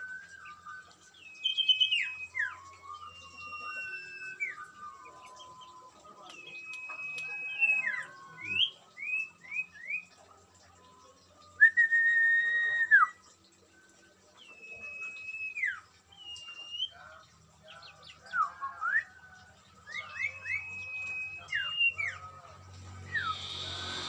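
Caged songbirds singing in clear whistled phrases: long level notes that drop sharply at the end, quick runs of short rising chirps, and a loud held note about halfway through.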